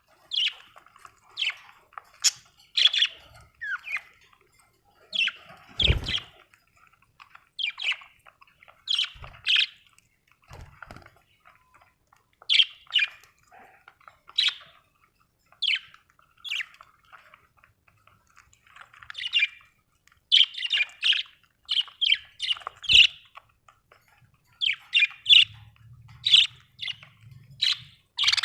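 Budgerigars chirping and squawking in short bursts of repeated chirps, several a second, with brief pauses; a couple of low thumps about six seconds in and near the end of the third quarter.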